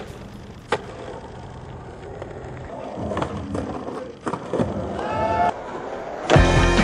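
Skateboard on concrete: wheels rolling, with sharp clacks of the board popping and landing about a second in, three seconds in and four seconds in. Loud background music starts near the end.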